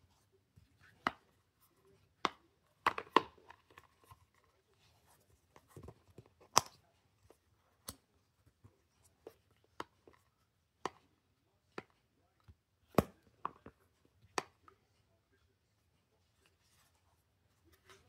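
Sharp clicks and taps, about a dozen at irregular intervals, from a black magnetic flip case for an iPhone XR being handled, its cover flipped open and pressed shut.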